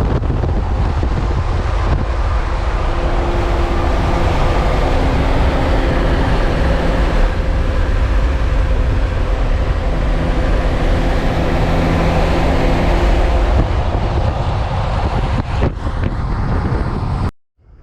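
6.7 L Cummins inline-six turbodiesel running steadily at a cold start, loud, with a heavy low rumble; the owner wonders whether a misfire can be heard in it. The sound cuts off abruptly near the end.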